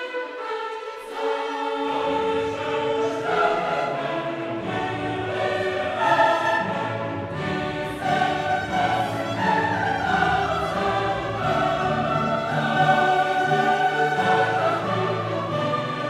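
Choir singing with an orchestra, a full, sustained choral-orchestral piece; the low orchestral parts come in about two seconds in.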